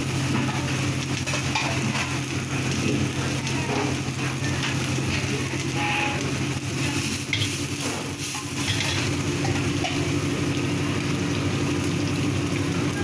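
Food frying in hot oil in a wok, a steady sizzle over a low continuous hum, with a couple of brief utensil clinks around the middle.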